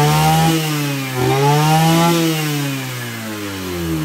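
Kawasaki TG33 33 cc two-stroke brush cutter engine revved at high throttle, its pitch rising and falling twice, then easing down toward idle near the end.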